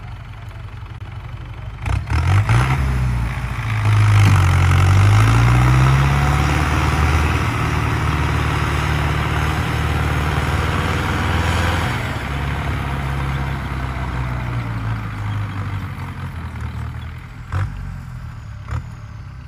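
Belarus 562 tractor's diesel engine revving up hard about two seconds in as it pulls a loaded trailer, its pitch rising and falling with the throttle, then easing off from about twelve seconds. Two sharp knocks near the end.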